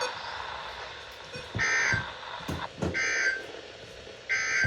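Three short, harsh digital data bursts of the Emergency Alert System's SAME code, about 1.3 seconds apart: the end-of-message signal that closes a broadcast warning.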